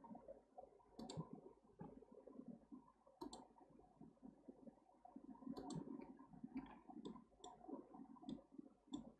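Faint clicks of a computer mouse and keyboard in use: three sharper clicks a couple of seconds apart, then a run of lighter clicks, over faint background noise.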